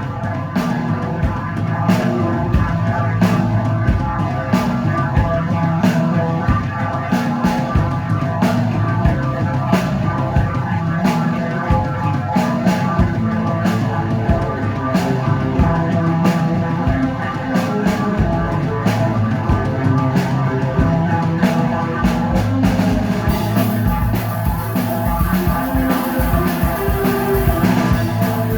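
Rock band playing live, drum kit and guitars together, loud and dense throughout. About 23 seconds in, a bright hiss joins over the top.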